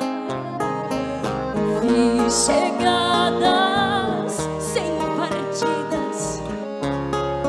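Live ensemble of acoustic guitar, button accordion, flute and bass guitar playing a slow gaúcho-style ballad, with sustained melody notes carrying vibrato over plucked guitar chords.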